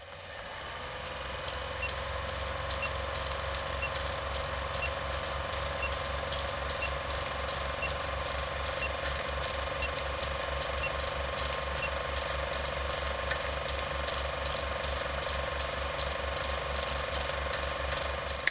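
Film projector running: a steady, even clatter of about three to four clicks a second over a motor hum. It fades in at the start and stops abruptly at the end.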